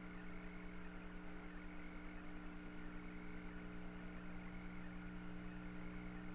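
Open air-to-ground radio channel between transmissions: a steady hum of several held tones under an even hiss.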